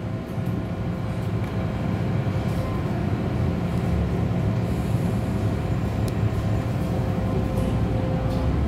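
MTR Island Line M-Train electric multiple unit pulling out of a station, heard from inside the carriage: a steady low rumble of the train getting under way, growing a little louder over the first couple of seconds, with faint steady tones from the traction equipment.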